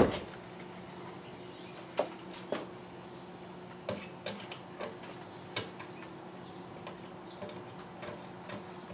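Scattered light clicks and knocks from handling a cordless drill and pocket-hole screws against a plywood cabinet, with one sharp knock right at the start, over a faint steady hum.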